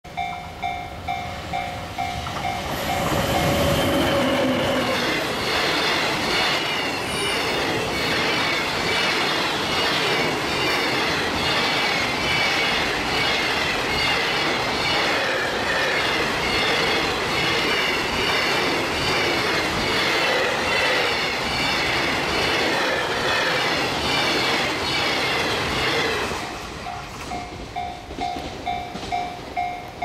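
Japanese level crossing alarm ringing in a steady repeating beat. About three seconds in, a JR Freight EF200 electric locomotive passes close by, followed by a long train of container wagons rolling past with a fast rhythmic wheel beat for over twenty seconds. The train clears about 26 seconds in and the crossing alarm is heard again.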